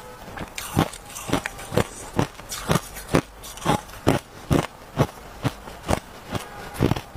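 Crushed ice crunching as it is chewed, a steady run of sharp crunches a little over two a second.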